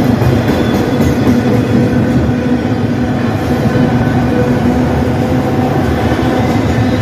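Enclosed autorack cars of a CN freight train rolling past close by, their steel wheels on the rail making a loud, steady rumble with a steady droning tone running through it.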